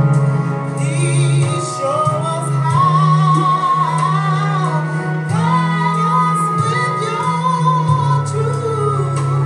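Gospel worship song playing: a female lead voice singing a slow melody over sustained keyboard chords and bass.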